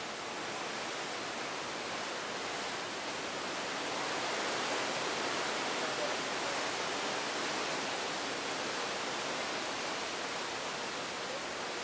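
Steady rushing of sea water along the hull of a cruise ship under way, swelling slightly in the middle.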